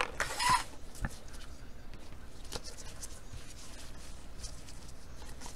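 Stiff trading cards being slid and flipped through a stack in gloved hands: a short rustle near the start, a sharp tap about a second in, then faint scattered ticks.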